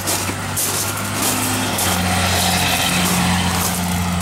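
A motor vehicle engine running with a steady low hum that grows a little louder about two seconds in.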